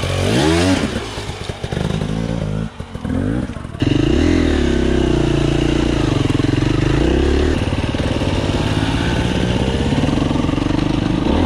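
Dirt bike engines: revs rising and falling in the first second, then about four seconds in a sudden change to a louder, steady engine note of a Husqvarna TE300 two-stroke ridden along the trail, heard close up.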